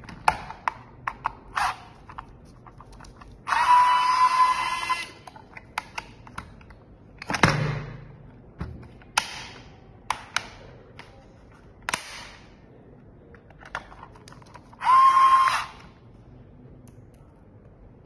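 Small electric screwdriver running in two short bursts with a steady whine, one of about a second and a half and one under a second near the end, as screws are driven. Sharp clicks and knocks of plastic parts and screws being handled come between the bursts.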